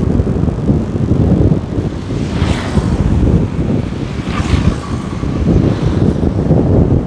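Steady low rumble of wind buffeting the microphone and road noise from a moving vehicle in city traffic, with two brief louder swells about two and a half and four and a half seconds in.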